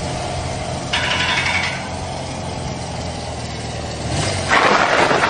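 Motorcycle engine idling steadily, with a short burst of hiss about a second in and a louder rush of noise near the end.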